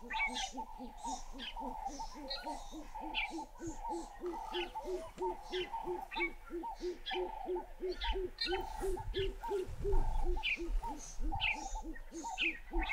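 Bush ambience of calling birds: a fast, steady series of low hooting notes, about four a second, under higher chirps and whistles. A low rumble comes about two thirds of the way in.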